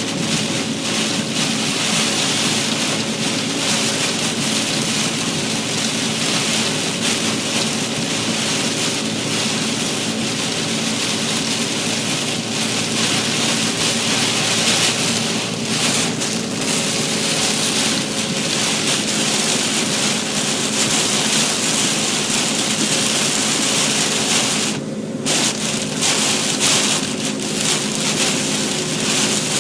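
Heavy rain beating on a moving car, a dense steady hiss over a steady low hum from the car. Near the end the rain noise drops out for about half a second.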